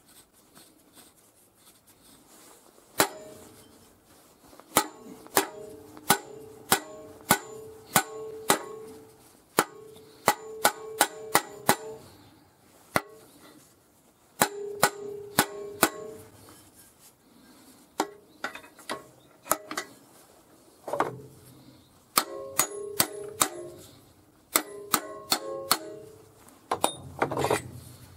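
Rusty steel parts being knocked together by hand: dozens of sharp metal-on-metal strikes in irregular runs, each ringing briefly. There are duller, heavier knocks about two-thirds of the way through and near the end.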